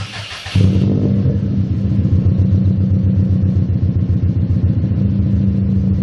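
Subaru Impreza's flat-four engine being started: a brief starter whirr, then the engine catches about half a second in and settles into a loud, steady, pulsing idle rumble from the exhaust. Recorded on a camera's built-in microphone.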